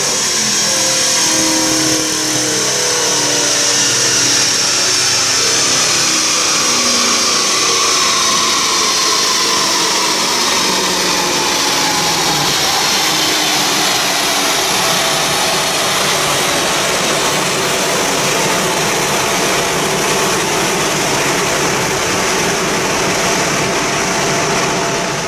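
Mercedes C63 AMG estate's V8 running on a chassis dynamometer together with the spinning dyno rollers: a steady loud roar, with whines that slowly fall in pitch.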